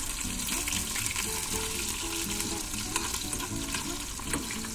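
Oat-and-bacon oatcake deep-frying in hot fat in a wok on a gas stove, sizzling steadily, with small clicks and scrapes of a utensil working it in the pan.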